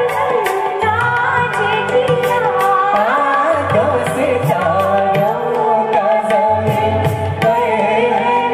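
Live band playing a Hindi film song with singing: sung melody lines glide over hand drums and a drum kit keeping a steady beat, with bass underneath.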